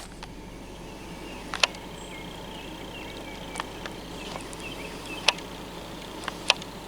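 Outdoor ambience with faint chirping, and a few sharp clicks spread through it.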